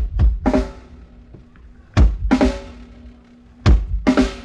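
Drum kit played in short groups of hits about every two seconds: kick drum with toms and snare, each group ringing on with a pitched tom tone, as the drums are checked and mixed for a live stage.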